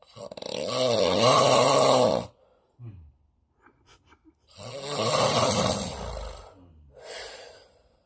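A sleeping man snoring loudly through an open mouth: two long snores about four seconds apart with a wavering pitch, then a shorter, fainter one near the end.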